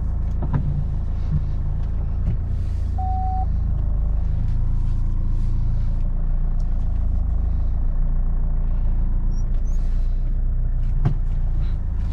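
Chevrolet Cruze running and driving slowly, a steady low rumble heard from inside the cabin, with a short single-tone beep about three seconds in and a few light clicks.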